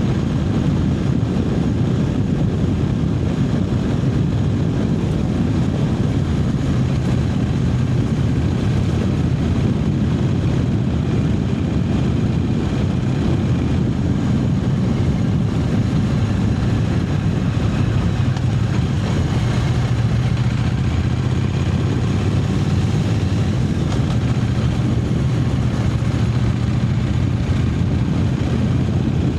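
Triumph Speed Twin 900 motorcycle's parallel-twin engine and exhaust running at a steady pace while riding, with a low, even engine note and rushing noise over it.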